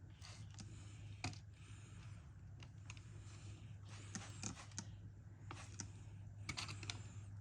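Faint hand-pump spray bottle squirting soapy water onto the air compressor's fittings to check for leaks: a series of short hissing squirts with trigger clicks, over a low steady hum.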